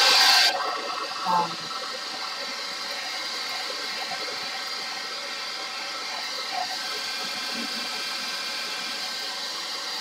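Handheld hair dryer running, blowing hot air over the plastic cover of a diamond-painting canvas to smooth out creases. It is much louder for the first half second, then a steady blowing hiss with a faint motor hum.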